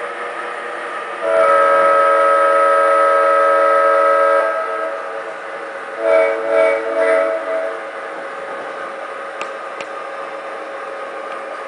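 Horn of an MTH Premier O-gauge SD90/43MAC model locomotive's sound system, playing a Union Pacific AC6000 sound set: one long blast of about three seconds, then several short toots. A steady diesel engine sound from the model's speaker runs underneath.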